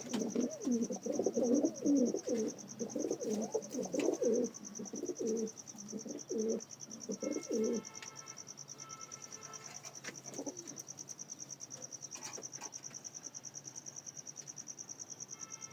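Domestic pigeons cooing over and over, thinning out and stopping about eight seconds in. A steady high-pitched whine runs throughout, and after the cooing stops a fast, even pulsing continues.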